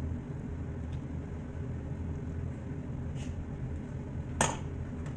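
Steady low background hum, with a sharp click about four seconds in and a fainter one shortly before, as a hand-held lever lemon squeezer is pressed over a plastic bowl.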